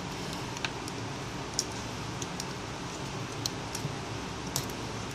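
Scattered light clicks and ticks of small metal tools and fingers working on an iPhone 5's internal parts, as the charging-port flex cable and its antenna are being detached. A steady low hum runs underneath.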